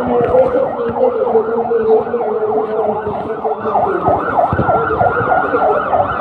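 Emergency vehicle sirens sounding loudly. One yelps in quick rise-and-fall sweeps, about three a second, over a steadier siren tone.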